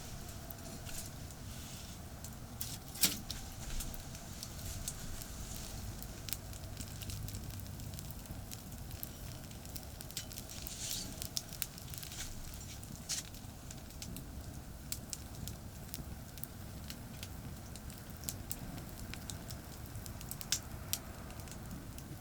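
Wood campfire burning, with scattered sharp crackles and pops, the loudest about three seconds in, over a steady low rumble.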